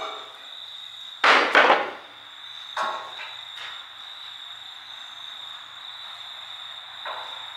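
Loud metallic clanking, two hits in quick succession about a second and a half in, then a lighter knock near three seconds and another near the end, as an old International Transtar truck's front bonnet panel is handled and swung up. A steady high cricket trill carries on underneath.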